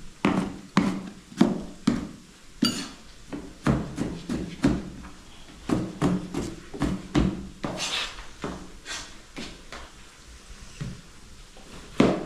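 Kitchen knife dicing a tomato on a cutting board: irregular sharp knocks of the blade against the board, about one or two a second.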